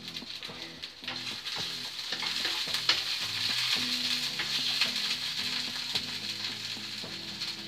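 Sausages sizzling in a frying pan on a gas hob, getting louder about a second in, with scattered clicks of a wooden spoon against the pan as they are turned.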